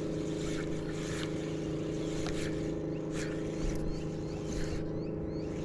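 Motorboat engine running at a steady speed, a constant drone.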